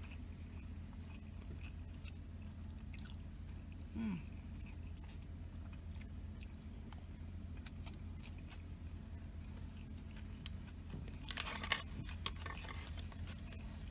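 Close-miked chewing of a mouthful of pork fried rice, with small wet mouth clicks and a short low falling 'mm' about four seconds in. Near the end a plastic spoon clicks and scrapes in the plastic takeout tray. A steady low hum runs underneath.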